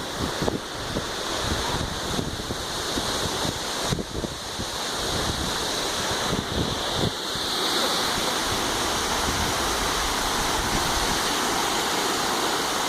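Waterfall: a steady rush of falling water, with low buffeting on the microphone for the first seven seconds or so.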